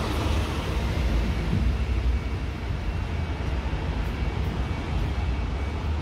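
Steady low rumble of city street traffic, with no single sound standing out.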